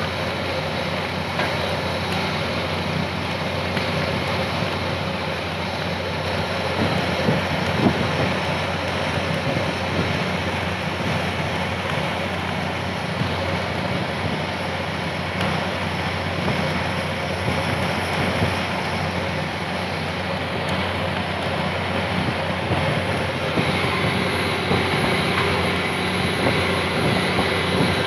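Fishing boat's engine running steadily under way, a low even drone, with rushing water and wind over it.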